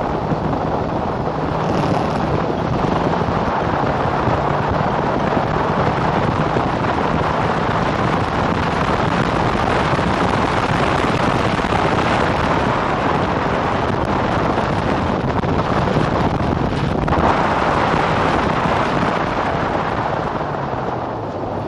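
Wind rushing over the onboard camera's microphone on an open-cockpit racing car at speed, with the engine running steadily underneath.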